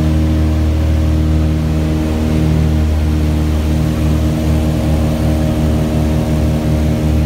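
The engines of a small twin-engine propeller plane droning steadily, heard from inside the passenger cabin. About halfway through, a regular throbbing beat sets in.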